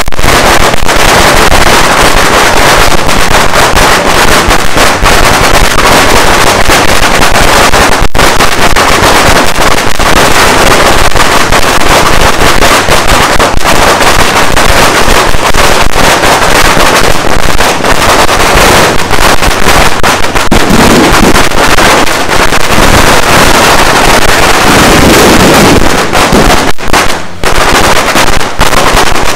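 A long string of firecrackers going off in one dense, unbroken crackle, very loud, with only a brief break about 8 seconds in and another near the end.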